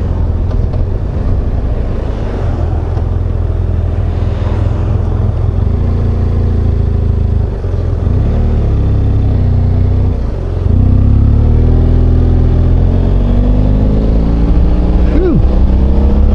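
Motorcycle engine pulling under acceleration with wind rush. The engine pitch climbs, then drops at gear changes about halfway and about two-thirds of the way through, climbing again after each one.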